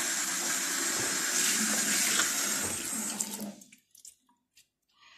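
Kitchen mixer tap running into a sink full of pots, the stream splashing steadily, then shut off about three and a half seconds in, leaving a few light clicks.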